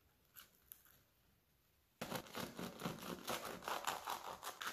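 Crisp crust of fried gnocco fritto crackling and crunching as a piece is cut and broken open. A couple of light clicks come first, then a dense crackle starts about two seconds in.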